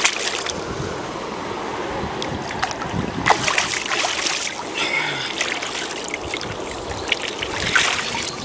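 Wind on the microphone with lake water moving at the bank, a steady rushing noise broken by a few sharp crackles, the busiest about three to four and a half seconds in and again near the end.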